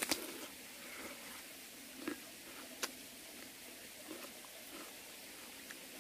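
A crisp bite into a ripe Korean melon (chamoe) right at the start, followed by chewing with a few small crunches and mouth clicks over a steady faint hiss.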